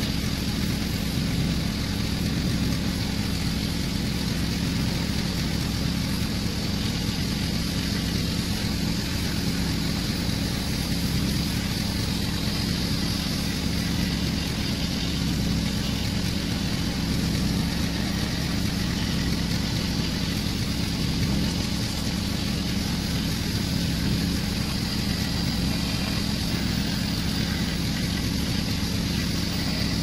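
Angle grinder fitted with a belt sander attachment running steadily, sanding carved wood, with an even motor whine and no pauses.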